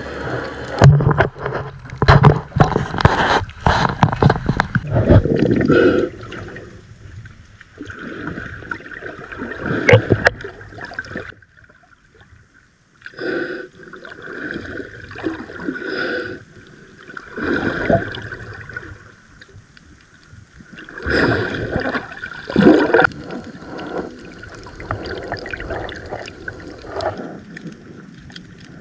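Water sloshing and gurgling in irregular surges, loudest over the first six seconds and quieter after.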